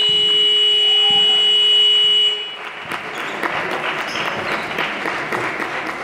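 Gymnasium scoreboard buzzer sounding one long, steady electronic tone that cuts off about two seconds in. After it come indistinct voices and scattered court noises in the hall.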